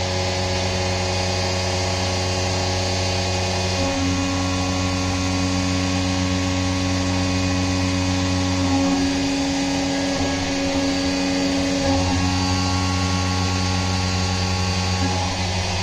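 CNC vertical mill's 10 mm three-flute end mill at 5400 rpm taking a deep side-milling cut (16 mm deep, 3 mm wide) in a metal plate under flood coolant: a steady machining whine. A new, stronger tone comes in about four seconds in as the cut engages, and the pitch shifts a couple of times as the tool moves along the cut.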